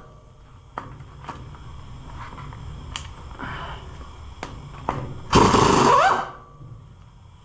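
Impact wrench hammering for about a second, its whine rising near the end as it loosens a bolt on the compressor's engine, with a few light clicks of tools before it.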